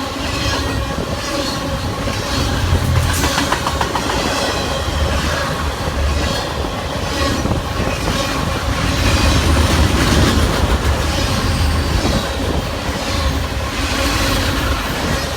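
Canadian Pacific Expressway train's cars rolling past, the wheels clattering rhythmically over the rail joints with a low thump as each set of wheels goes by.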